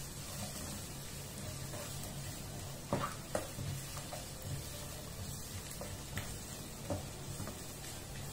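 Sliced onion, garlic and carrot sizzling in butter in a nonstick frying pan on a gas flame, sautéing until they wilt, stirred with a nylon slotted spatula. The spatula clicks sharply against the pan a few times, about three seconds in and again near seven seconds.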